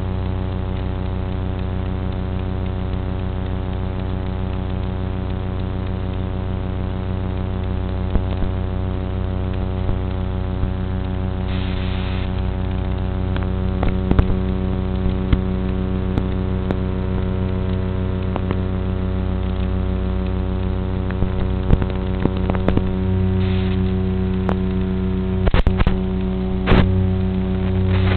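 A steady electrical hum made of many even overtones that hold one pitch throughout, broken by scattered short clicks and crackles that grow more frequent in the second half.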